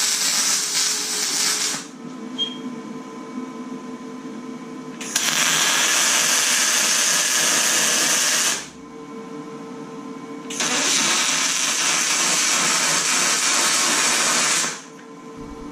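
MIG welding of aluminium square tube: three welding runs, about two, three and a half and four seconds long, each a steady loud hiss that starts and stops abruptly. Between the runs a low steady hum from the welding machine carries on.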